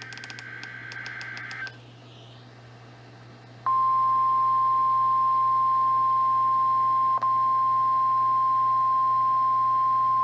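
NOAA Weather Radio weekly test signal from a weather radio receiver. It opens with a short burst of SAME digital header data tones. After a gap of about two seconds, the steady 1050 Hz warning alarm tone comes in loud and holds, with a brief dropout about seven seconds in.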